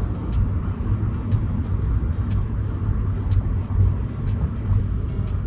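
Car driving with a steady low road-and-engine rumble, and a sharp tick about once a second.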